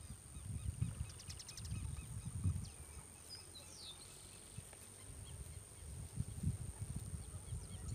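Wind buffeting the microphone in low rumbling gusts, with a few faint bird chirps about three to four seconds in.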